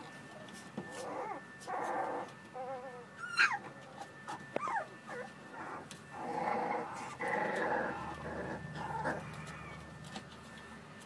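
American Bully puppies playing: a run of small growls and whines, with a high yelp sliding down in pitch about three and a half seconds in, its loudest moment.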